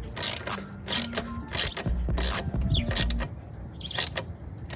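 Socket ratchet wrench clicking in short, uneven strokes: bolts on the cold air intake's mounting brackets being tightened down.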